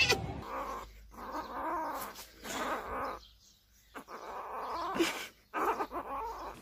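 Small kitten mewing in a string of drawn-out, wavering cries, with a short break about halfway through.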